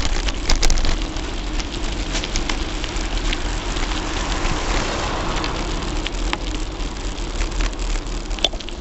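Riding noise of a Gary Fisher Tassajara mountain bike, picked up by a camera taped to the handlebars: tyres rolling on rough, gravelly asphalt as a steady rushing hiss, with frequent small clicks and rattles from the mount and a low wind rumble.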